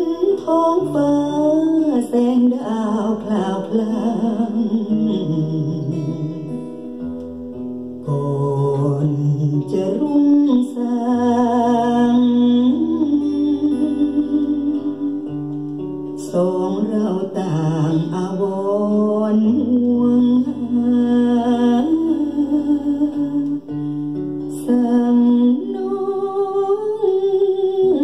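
A Thai luk thung song playing: a gliding lead melody over sustained bass notes and plucked guitar.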